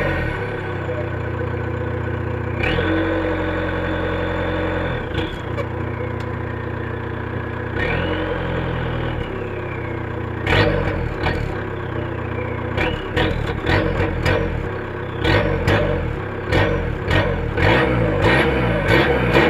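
Volkswagen Golf Mk4 TDI diesel engine idling, with a high whistle that comes in for a couple of seconds and later rises and falls once. In the second half, a run of sharp, irregular clicks and knocks.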